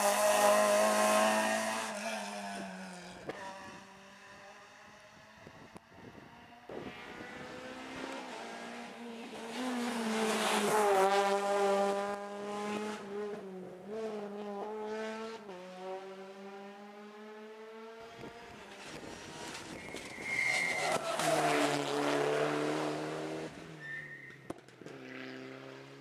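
Rally car engines at full race pace on a tarmac stage. One car goes past at the start and fades away. In the middle an engine is heard revving hard and dropping at each gearshift, and a second car passes loudly about two-thirds of the way through before fading.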